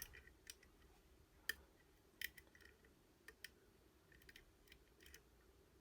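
Faint, irregular metallic clicks of a lever-lock pick working the levers of a Fortress 5-lever mortice sashlock, about ten small ticks scattered over a few seconds.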